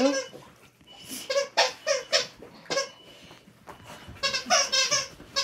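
A bull terrier chewing and playing with a new dog toy, giving a string of short, high squeaks, with a quick cluster of them near the end.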